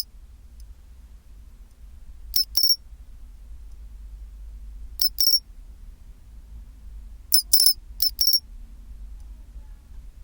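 Pine cricket (matsumushi, Xenogryllus marmoratus) calling its 'chin-chiro-rin' song: short, clear, high chirps in groups of two or three, three groups about two and a half seconds apart, the last group the longest.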